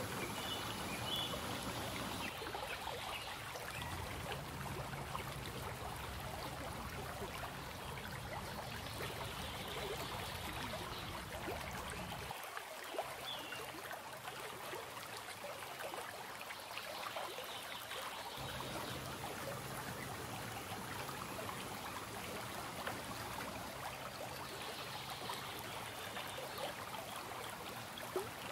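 Steady running water, a trickling garden stream.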